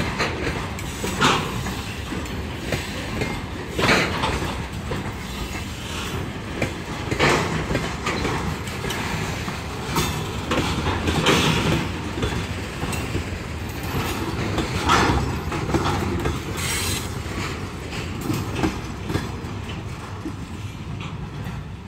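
Freight train of covered hopper wagons rolling slowly past: a steady wheel rumble with irregular loud clanks from the wheels over rail joints every one to four seconds, and brief wheel squeals.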